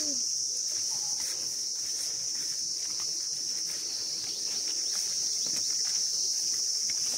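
Steady, high-pitched drone of an insect chorus, with faint footsteps and soft scuffs of people walking along a path through leafy plants.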